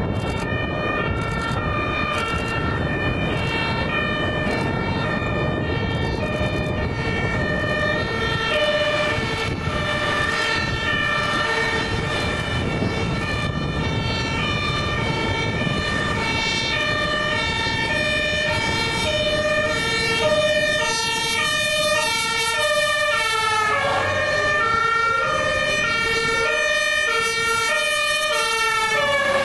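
Two-tone German fire-engine sirens (Martinshorn) on a MAN equipment truck and a turntable ladder truck, alternating high and low, two sirens sounding out of step, over diesel engine and tyre noise on a wet road. About three-quarters of the way through, the siren pitch drops as a truck passes.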